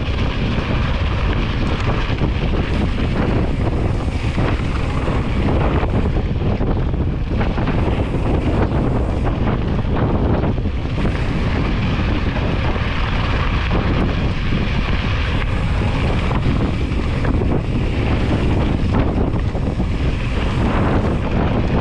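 Steady wind noise buffeting the microphone of a camera on a moving mountain bike, with a dense crackle and rattle beneath it from the tyres and bike on the rocky dirt trail.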